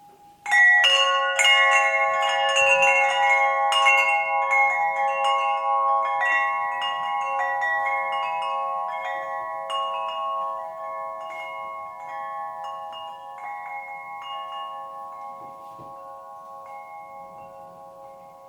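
Schneider 'Sol' (Sun) wind chime being struck, starting suddenly about half a second in. Many strikes come close together at first and grow sparser, while several tuned tones ring on together and slowly fade.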